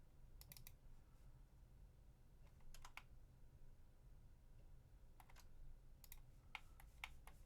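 Faint computer keyboard and mouse clicks at a desk, in small scattered clusters over a low steady hum, busiest near the end.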